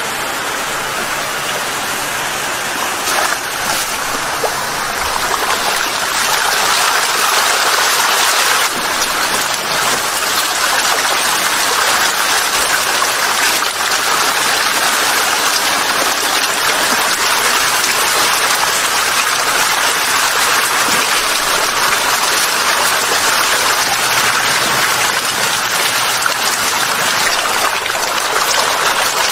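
Steady wet splashing and rushing water noise from a mass of farmed eels writhing and swarming over a block of feed paste. It grows louder about six seconds in.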